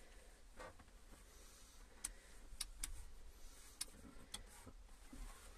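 Faint, sharp light clicks, about five of them, of the campervan fridge's plastic door, shelves and compartment being handled, over a low hum.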